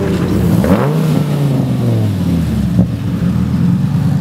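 Devon GTX's V10 engine revving up sharply about a second in, then easing off as the car pulls away at low speed.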